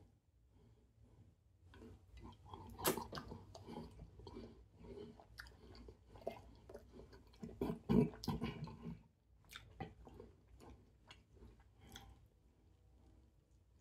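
Close chewing of a mouthful of goat meat, okra soup and fufu eaten by hand, a run of small mouth clicks and soft crunches. It is loudest about three seconds in and again around eight seconds, then fades to a few faint clicks near the end.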